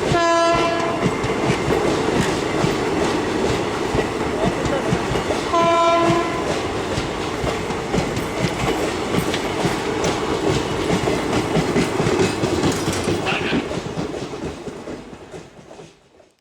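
WCAM 3 electric locomotive sounding its horn twice, a blast of about a second near the start and a shorter one about six seconds in, over the steady clatter of the train's wheels on the track. The rolling noise fades away near the end.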